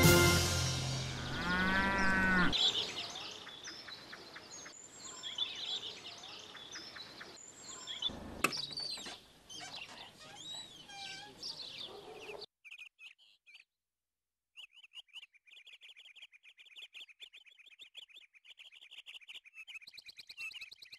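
Countryside ambience: birds chirping, with a single knock about eight seconds in, then after a short gap a rapid, steady, rhythmic chirping of birds or insects. The first couple of seconds hold the tail of background music fading out.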